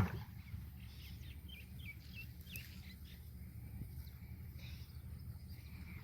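A few short bird chirps around two seconds in, over a steady low rumble, with a single knock at the very start.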